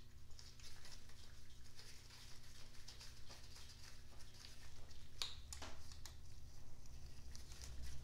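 Faint handling sounds of gloved hands fitting a connecting rod cap onto the crankshaft journal of a Datsun L28 engine: light rustling and small metal clicks, with two sharper clicks a little past halfway, over a steady low hum.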